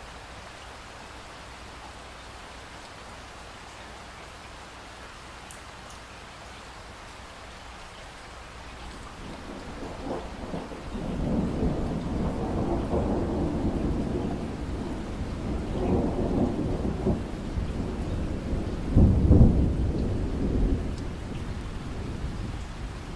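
Steady rain falling, then a long roll of thunder that builds from about nine seconds in. The rumble swells several times, is loudest in a sharp peak near the end, then dies away under the rain.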